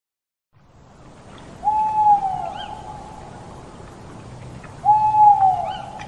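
An owl hooting twice, about three seconds apart: each call is a single drawn-out hoot that droops in pitch at its end. Faint chirps of small birds are heard behind.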